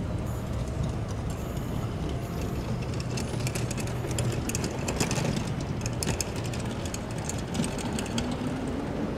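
Locomotive-hauled passenger train, an E200-class electric locomotive pulling Chu-Kuang express coaches, rolling out of the station with a steady low rumble. A run of sharp clicks and rattles from the wheels comes through the middle, and a faint tone rises in pitch near the end.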